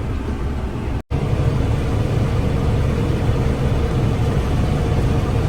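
Combine harvester running steadily while cutting a ripe oat crop: a constant low machine rumble with a steady hum running through it. The sound drops out for an instant about a second in, then carries on slightly louder.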